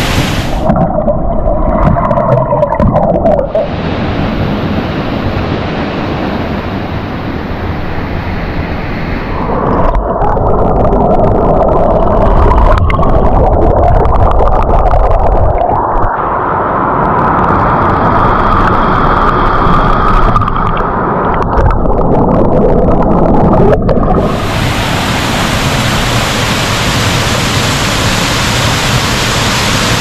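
Waterfall and plunge-pool water heard underwater on a GoPro: a muffled, gurgling rush with the high sounds cut away. About 24 seconds in it opens out into the full, bright, steady noise of the waterfall in open air.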